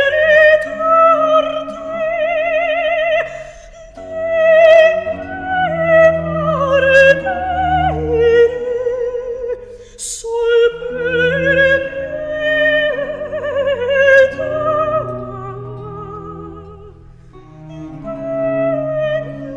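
Background music: operatic singing, a high voice with wide vibrato sustaining and gliding between notes over low orchestral accompaniment.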